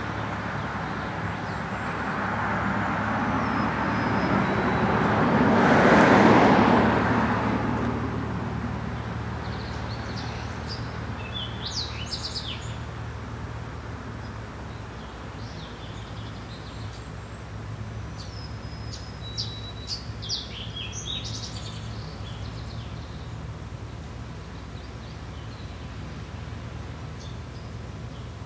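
A vehicle passing on the road, swelling to its loudest about six seconds in and then fading away. Birds chirp intermittently after it, over a steady low hum.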